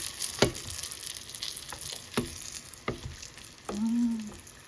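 Vegetable spring rolls deep-frying in hot oil, sizzling steadily, with a few sharp clicks and knocks over the top.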